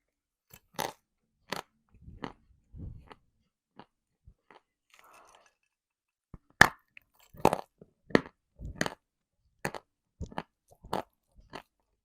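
Person biting and chewing hard, dry chunks of edible earth (chalk and clay), with crisp cracking bites and duller grinding chews. After a pause of about three seconds comes one loud, sharp bite, followed by crunches roughly twice a second.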